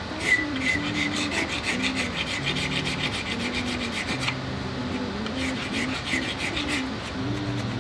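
Rapid hand-filing strokes on the rifle's epoxy-patched butt plate, scraping back and forth at about four or five strokes a second, shaping it to the curve of the stock and taking off excess epoxy. The strokes pause a little after four seconds in, resume, and stop about seven seconds in.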